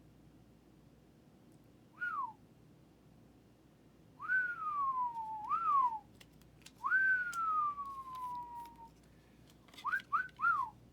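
A man whistling, a string of falling whistles: one short, two longer, one long slow descending whistle, then three quick short ones near the end.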